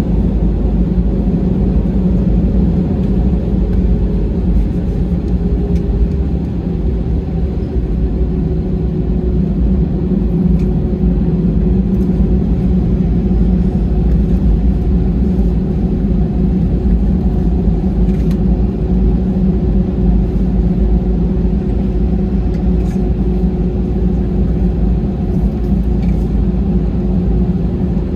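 Steady rumble and hum of an Airbus A320's engines and airframe heard from inside the passenger cabin while the jet taxis, with a faint steady tone over the rumble and no rise to take-off thrust.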